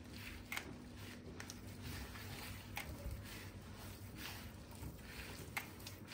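Hands kneading soft cookie dough of margarine, oil, yogurt, egg and flour in a bowl: faint squishing and rubbing, with a few light clicks.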